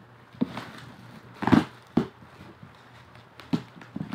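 Bubble wrap and plastic packaging rustling and crinkling as it is handled and pulled off a boxed chainsaw, in a handful of short, sharp crackles, the loudest about one and a half seconds in.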